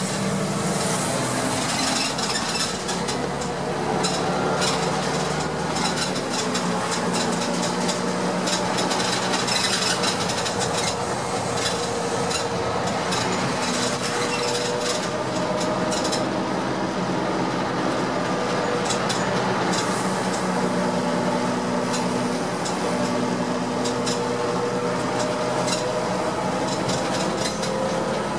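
Interior ride noise of a Heuliez GX417 articulated city bus under way: a steady engine and drivetrain rumble with a hum whose pitch rises and falls as the bus speeds up and slows. Frequent light clicks and rattles from the bus body and fittings run through it.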